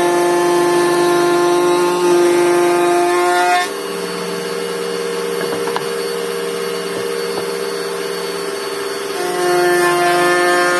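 Wood router spinning a Sekira 08-126-400 panel-raising bit with a steady high whine. It is louder and slightly lower in pitch for the first three and a half seconds and again near the end, as the bit cuts MDF, and runs lighter and a little higher in between.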